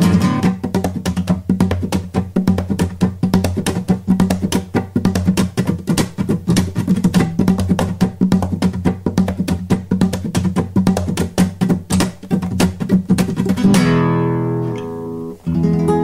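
Music: acoustic guitar strummed fast and steadily, settling about 14 seconds in into held chords that ring out.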